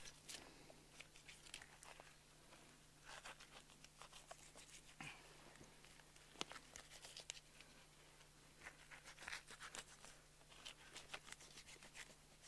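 Near silence with faint, scattered tearing and clicking sounds: a knife cutting an elk backstrap free along the backbone while gloved hands peel the meat back.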